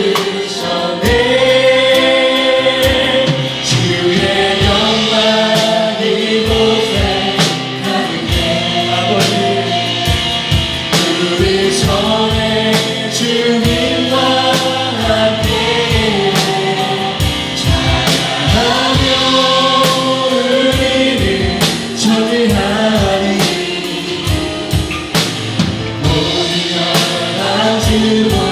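Congregational worship music: a praise team and congregation singing a Korean praise song over a band with drums.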